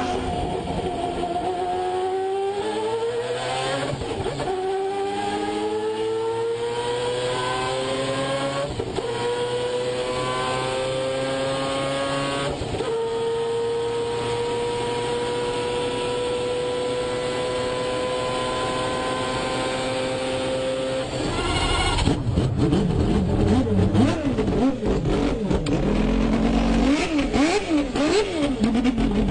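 Mazda 787B's four-rotor R26B rotary engine at full throttle, climbing in pitch through three upshifts and then holding a long, slowly rising high note. About 21 seconds in it cuts to the same engine blipped repeatedly, louder and choppier, the pitch jumping up and down.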